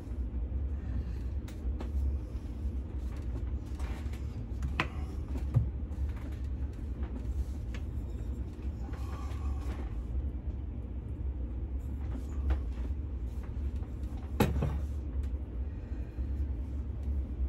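Steady low hum under a few light clinks and knocks of a glass mixing bowl being oiled with a pastry brush and handled on a kitchen counter, with a sharper knock near the end.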